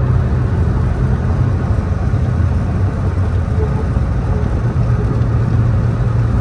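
McLaren 720S driving on a wet road, heard from inside the cabin: a steady low engine drone mixed with road noise.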